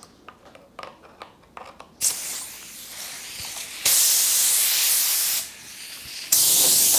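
Gravity-feed paint spray gun triggered without paint, blowing compressed air to dust off the panels. After a few light handling clicks, a softer hiss starts about two seconds in. Two loud hissing blasts of about a second and a half each follow, the second starting near the end.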